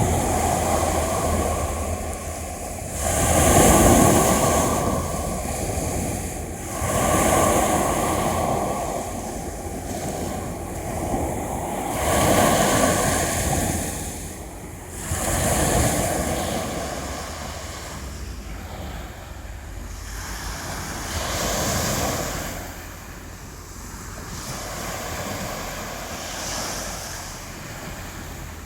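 Mediterranean Sea waves washing onto the shore, swelling and ebbing in repeated surges every few seconds, the loudest about four seconds in, with wind rumbling on the microphone.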